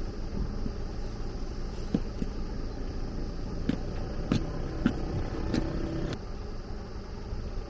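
Steady low rumble of a running vehicle, with a few sharp clicks or knocks through the middle.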